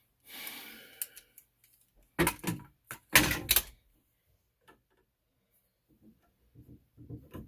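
A short scraping rustle, then a few loud knocks and clunks about two and three seconds in: tools and plumbing parts being handled during the pipe work.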